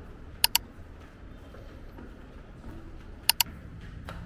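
Two sharp double clicks, the second pair about three seconds after the first, over a faint low background hum.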